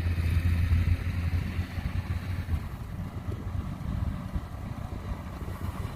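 Rice combine harvester engine running, a steady low hum that gives way to a rougher low rumble after about a second and a half.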